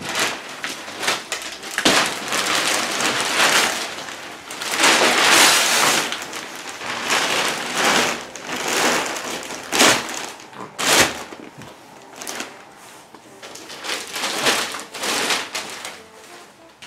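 Gift wrapping paper being ripped off a sofa and crumpled, in uneven crackling rips and rustles, loudest about five seconds in.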